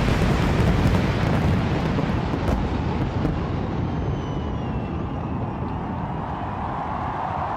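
Fireworks going off in a dense, continuous barrage of booms and crackling with a heavy low rumble, thinning out toward the end.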